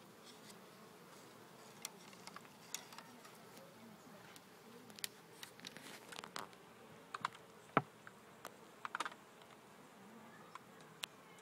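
A mass of honeybees buzzing in a low steady hum, with scattered sharp clicks and knocks from handling; the loudest knock comes about two-thirds of the way in.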